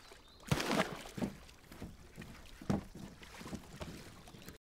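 A heavy metal ball dropped into lake water makes one strong splash about half a second in, followed by a few smaller splashes and knocks around the wooden boat. The sound cuts off suddenly near the end.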